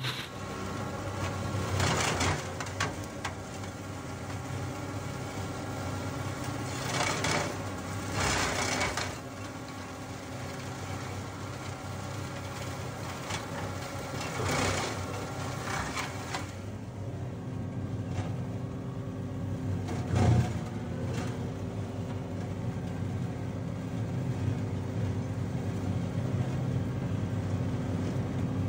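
John Deere 2038R compact diesel tractor running steadily under load while driving a PTO flail mower through tall brush. Several short, louder surges of chopping noise come and go as the flails hit thicker growth, the loudest about twenty seconds in.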